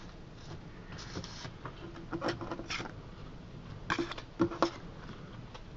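Scattered light taps and scrapes of a hand handling and sliding thin cardboard code cards across a tabletop, the loudest few clustered about four seconds in.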